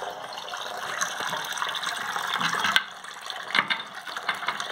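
Water running from a bathroom basin tap into the sink, a steady hiss that drops away about three seconds in. A few light clicks follow as the chrome cross handle is fitted onto the tap's valve.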